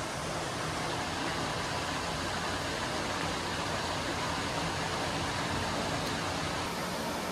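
Steady rush of water pouring into a deep brick canal lock chamber, an even hiss with no change in level.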